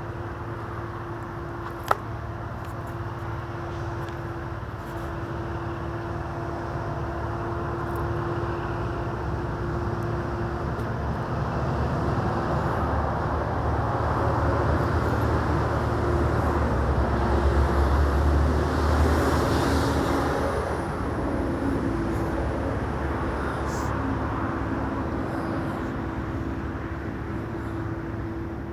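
Steady motor-vehicle engine and road noise that swells to a peak about two-thirds of the way through and then fades, as a vehicle passes close by. One sharp click about two seconds in.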